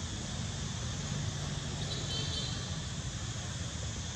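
Steady outdoor background noise: a constant low rumble with an even hiss, and a faint, brief high chirp about two seconds in.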